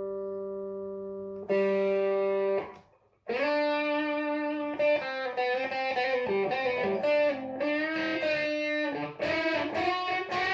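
Electric guitar played through a preamp pedal set to slight gain, into a clean amp. A held chord rings and a second chord is struck about a second and a half in. The sound is cut off and briefly silent around three seconds in, and then comes a run of changing melodic notes to the end.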